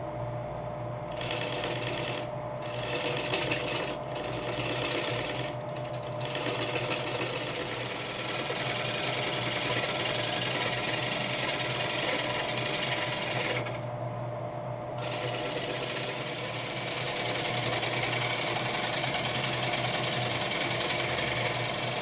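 Wood lathe running with a steady motor hum while a bowl gouge cuts the outside of a spinning green (wet) wood bowl blank, a loud rushing hiss of shavings peeling off. The cutting stops briefly several times as the tool is lifted, the longest break about fourteen seconds in.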